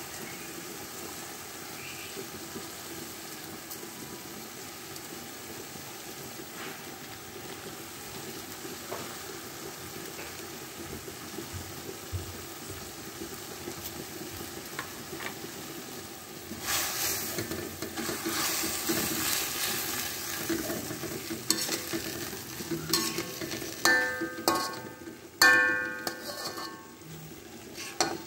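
Water spinach stir-frying in a metal wok with a low, steady sizzle, which grows louder from about halfway as a metal spatula turns it. Near the end the spatula knocks and scrapes against the wok several times, making it ring.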